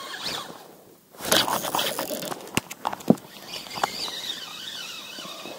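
Spinning reel being wound and the rod handled, a sudden burst of rustling with sharp clicks and knocks about a second in, then a few separate clicks.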